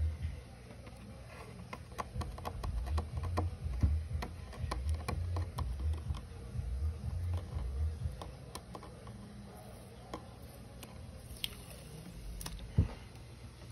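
Handling noise from a handheld phone: low rubbing and bumping on the microphone for the first several seconds, with scattered small clicks and a sharper knock near the end.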